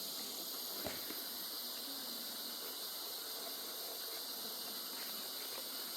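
Steady, high-pitched chorus of night insects such as crickets, with one faint click about a second in.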